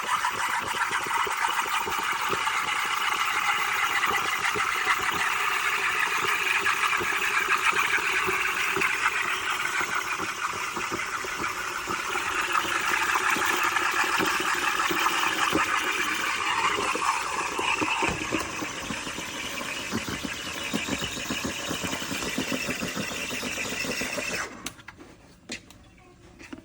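Ihomekee 15-bar espresso machine running steadily, with a fast buzzing texture, then shutting off abruptly about 24 seconds in.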